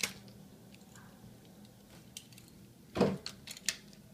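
Small clicks and clacks of die-cast Hot Wheels cars being handled and set into the plastic starting gate of the track: a click at the start, a louder knock about three seconds in, then a couple of light ticks.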